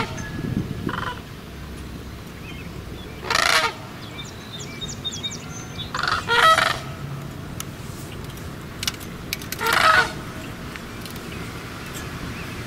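Sandhill cranes calling: loud calls a few seconds apart, two of them close together about halfway through, with a shorter, fainter call near the start.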